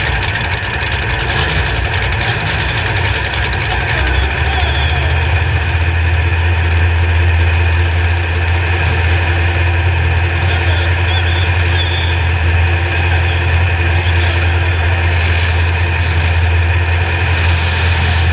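Demolition derby car's engine idling steadily with a strong low hum, settling into an even, slightly louder idle about four seconds in.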